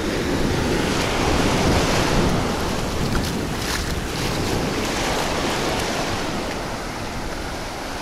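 Small Sea of Azov waves washing up the sand around wading bare feet, a steady rush of surf, with wind rumbling on the microphone.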